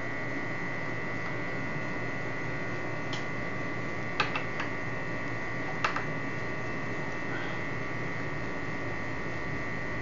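Steady electrical hum with a high steady whine, and a few small sharp metallic clicks from about three to six seconds in as a screwdriver works the screws out of a mortise lock's steel cover plate.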